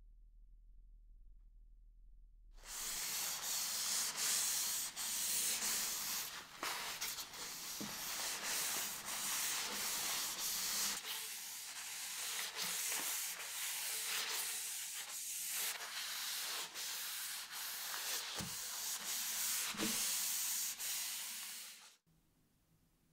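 Cloth rubbing linseed oil varnish into a wooden knife handle in quick back-and-forth wiping strokes. It starts about two and a half seconds in and cuts off suddenly near the end.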